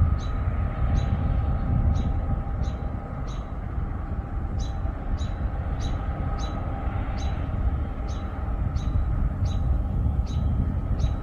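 Distant grain-harvest trucks and farm machinery running with a steady low rumble and a faint hum. A short high chirp repeats about twice a second over it.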